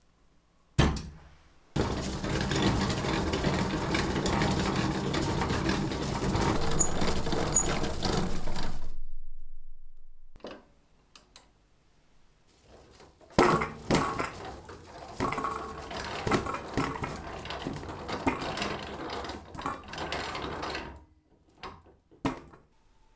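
Hand-cranked antique potato peeler: potatoes tumbling and scraping inside its perforated grater drum as the crank turns, a dense steady rumble for about seven seconds. After a pause comes a second, more uneven stretch of tumbling with many knocks, and there are single knocks at the start and near the end.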